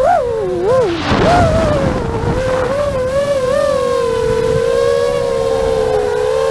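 Multirotor drone propellers whining, the pitch swooping up and down, then holding nearly steady as the drone hovers. A rush of wind comes through about a second in.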